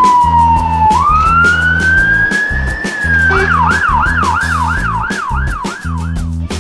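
A siren wailing: a long falling tone that sweeps back up about a second in, then switches at about three and a half seconds to a fast yelp of about three warbles a second, over background music with a steady beat.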